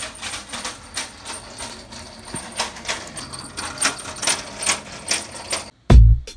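Clear plastic parts storage cases clacking as they are handled and shifted on a store shelf: a quick, uneven run of clicks over a faint steady high hum. Near the end the sound cuts to music with a heavy beat.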